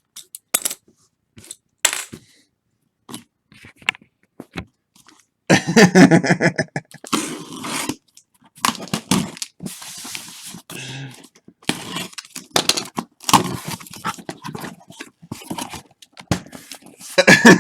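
Scattered scrapes and clicks from card boxes and packaging being handled, with a man's low, wordless voice twice, about six seconds in and near the end.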